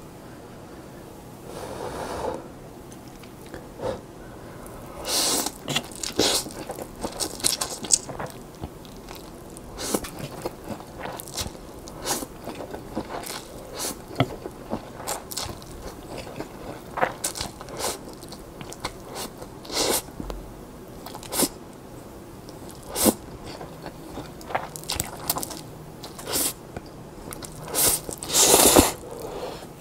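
Close-miked slurping and chewing of instant yakisoba noodles eaten with chopsticks: a string of short wet slurps and mouth smacks, with the longest and loudest slurp near the end.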